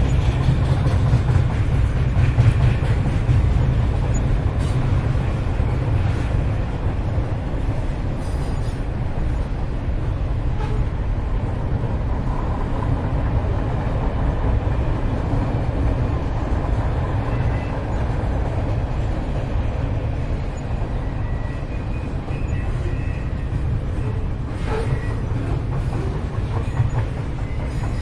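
Train running on the rails, a steady heavy rumble with faint wheel squeals now and then toward the end.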